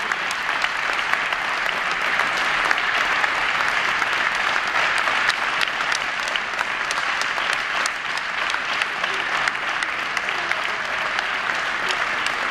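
Steady applause: many hands clapping at once in a dense, irregular patter that keeps going without a break, with voices mixed in.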